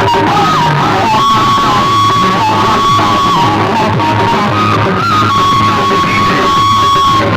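Loud music played through a DJ sound system's loudspeaker boxes: a held, sliding lead melody over a steady pulsing bass.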